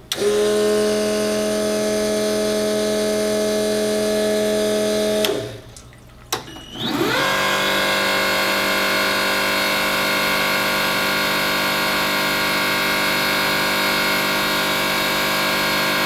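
Spur-gear brushless electric fuel pump (3.5 gallon-per-minute) running on a flow test bench at free flow with no pressure applied, a steady whine. About five seconds in it stops for a moment, then spins up again with its pitch rising and settling into a steady whine at a slightly different pitch.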